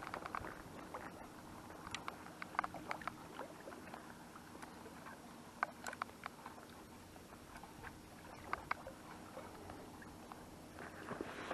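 Sea water lapping gently against concrete breakwater blocks, a steady low wash, with scattered light clicks and taps from gear being handled.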